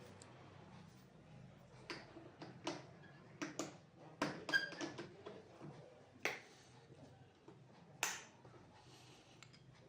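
A string of sharp clicks and knocks, as of small hard objects being handled and set down, with one brief ringing tap about halfway through.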